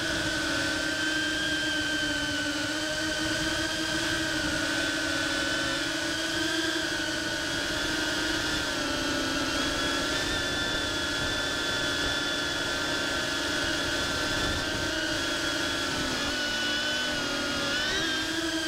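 GEPRC CineBot30 cinewhoop's ducted propellers and motors whining steadily in flight, the pitch drifting slightly with throttle and dipping briefly near the end.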